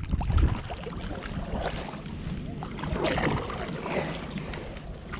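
Wind rumbling over the microphone on a kayak, with small splashes and lapping of water around the hull.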